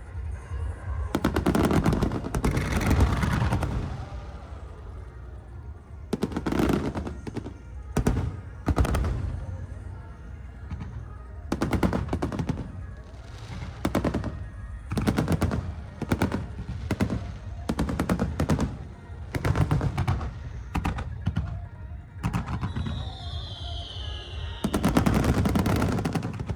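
Aerial fireworks shells bursting in quick succession: sharp booms and dense crackling volleys, some bunched into long rapid strings. A falling whistle comes through about two-thirds of the way in.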